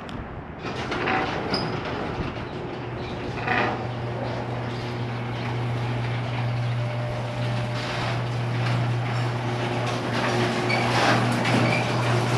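A vehicle running with a steady low hum throughout, with rattling and clatter over it.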